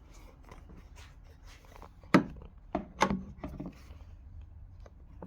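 Handling knocks on a hard, wooden-sounding surface: one sharp knock about two seconds in, then a few softer knocks and clatters over the next second or so.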